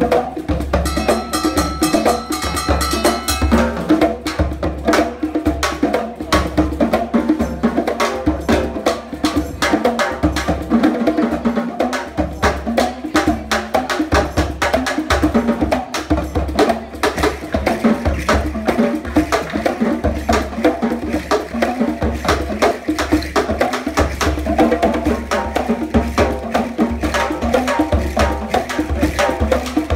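West African percussion music: a balafon, a wooden xylophone with gourd resonators, plays a fast, busy line over a talking drum struck with a stick and hand drums keeping a steady driving rhythm.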